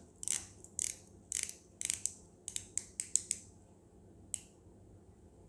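Faint, irregular clicks from the crown of a Festina F20480/3 automatic dive watch (Miyota 8-series movement) being turned to spin the hands round and check the midnight date change. The clicks come in quick runs, busiest in the middle, with a last single click about four seconds in.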